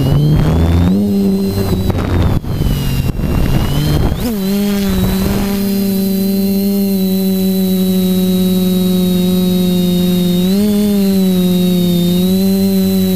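FPV quadcopter's electric motors and propellers buzzing, the pitch shifting with throttle amid rough wind noise for about the first four seconds, then settling into a steady hum. The hum rises briefly about ten seconds in and dips near the end.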